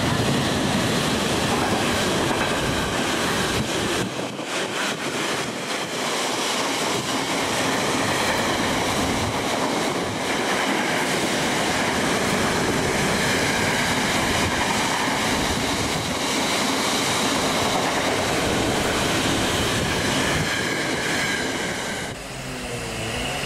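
An intermodal freight train's container wagons passing at speed: a loud, steady rush of wheels on rail, with a run of sharp clicks from the wheels a few seconds in. About a second before the end the rush drops away to a quieter, different sound.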